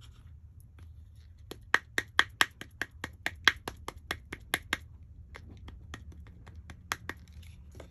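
A wooden-block rubber stamp dabbed again and again onto an ink pad to ink it: a quick run of sharp taps, about five a second, for a few seconds, then a few scattered taps.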